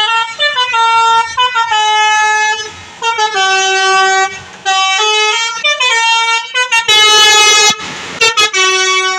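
Bus telolet horn, a multi-tone air horn, playing a melody of loud held notes that step up and down in pitch, with short pauses between phrases. About seven seconds in, a brief burst of noise cuts across the tune.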